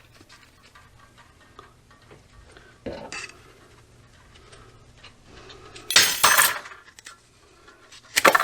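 Tools and small parts handled on a workbench: light clinks and taps, a knock about three seconds in, then two louder scraping clatters about six and eight seconds in.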